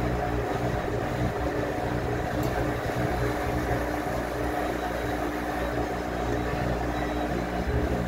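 Top-loading washing machine running with a steady mechanical hum.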